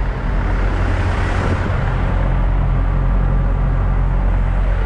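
Semi-truck diesel engine idling: a steady low rumble with an even hum underneath.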